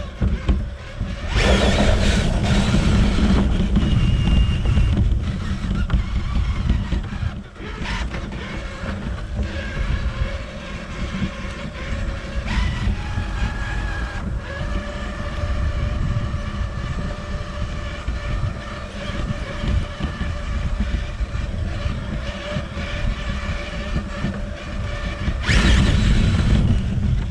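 Traxxas TRX-4 RC crawler driving over rough grass, heard from a camera riding on the truck: its electric motor and gearbox whine, shifting in pitch with the throttle, over a heavy rumble from the tires and chassis on the bumpy ground. It gets louder in surges about two seconds in and again near the end.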